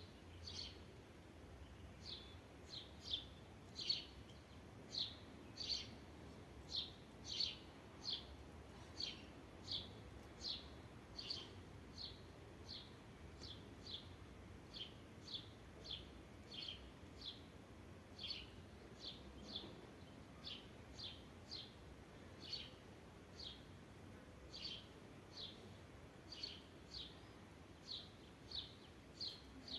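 A bird repeating a short, high, downward-slurred chirp over and over, about two notes a second, faint against a low background hiss.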